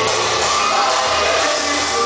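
Brazilian axé music with vocals, playing loudly and continuously over a loudspeaker for a dance class.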